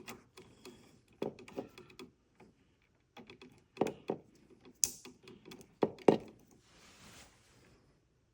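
Electrical wires and connectors being handled and pushed into a single-gang electrical box: irregular clicks and knocks, the loudest few about four to six seconds in, with a brief rustle near the end.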